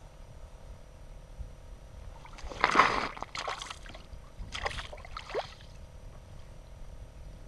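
Water sloshing and splashing in an ice-fishing hole as a walleye is released back down it: a louder splash about two and a half seconds in, then a second, shorter one about a second later.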